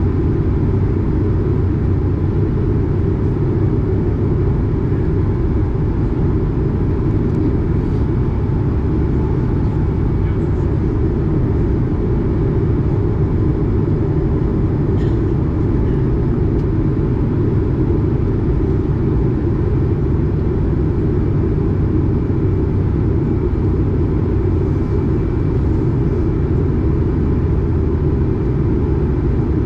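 Steady low rumble inside the cabin of an Airbus A220 in flight, from its Pratt & Whitney PW1500G geared turbofan engines and the air rushing past the fuselage, with a faint steady whine above it.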